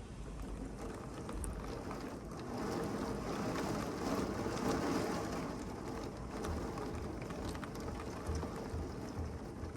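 Heavy rain falling steadily, with fine patters of drops throughout. It swells louder for a few seconds around the middle.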